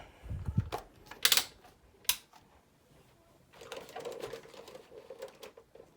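Handling noises: a dull thump, two sharp clacks, then from a little past halfway a run of light, rattling clicks.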